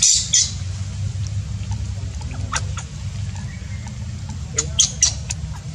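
Baby macaque squeaking in short, high-pitched cries: a run of them right at the start, one alone a couple of seconds later, and a cluster about five seconds in, over a steady low hum.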